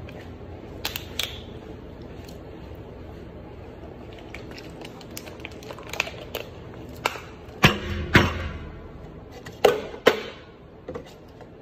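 Plastic water bottles and red plastic cups handled on a glass tabletop: scattered clicks and taps of caps and bottles, then loud knocks of the cups being slammed and flipped on the table, the loudest two close together about two-thirds of the way through and two more near the end.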